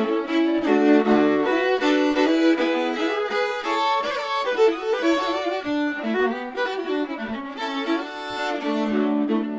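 Two fiddles playing a Swedish folk polska together in duet, with a quick run of bowed notes.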